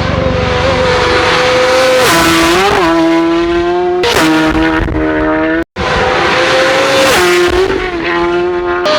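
Racing superbikes passing flat out, each engine note held high and then dropping in pitch as the bike goes by. The sound cuts out for an instant about six seconds in.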